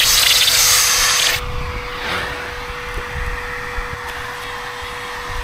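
Vacuum cleaner running through a long corrugated hose with an extension nozzle, sucking air and loose mud from a rooftop RV air conditioner's fan housing. There is a loud rush of air for about the first second and a half, then it drops quieter over a steady motor hum.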